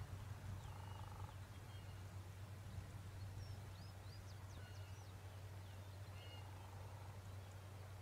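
Faint, scattered high chirps of small birds calling, over a steady low hum.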